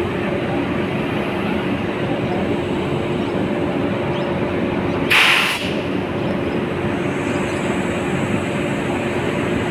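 WAP-5 electric locomotive standing at the platform with its equipment running: a steady hum and rush with a constant low tone. About five seconds in there is a brief hiss.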